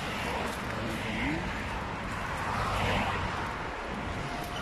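Steady rush and low rumble of street traffic and wind, heard from a moving bicycle.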